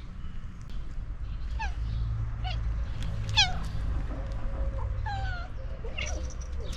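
Cats meowing: about five short meows, each falling in pitch, the loudest about halfway through, with a steady low rumble underneath.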